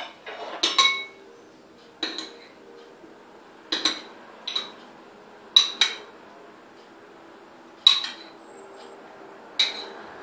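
Metal utensil clinking against a ceramic salad bowl as a salad is stirred: about nine sharp, ringing clinks at uneven intervals, a second or two apart.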